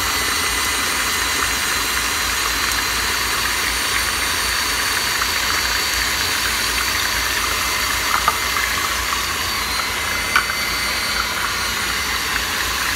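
KitchenAid stand mixer running steadily, beating cake batter in a glass bowl, its motor making a steady whir with a high thin whine. Two light clicks come in the second half.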